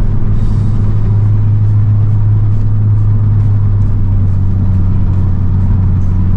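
Honda Civic Type R's turbocharged 2.0-litre four-cylinder with an aftermarket exhaust, cruising at a steady speed and heard from inside the cabin as an even, low drone over road and tyre noise.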